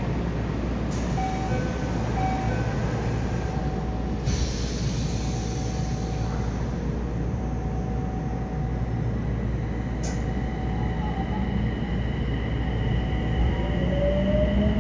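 Running noise inside a Yokohama Municipal Subway 4000-series car: a steady rumble of wheels on rail with faint steady motor tones. Near the end a rising whine begins as the Mitsubishi hybrid SiC-VVVF inverter powers the traction motors.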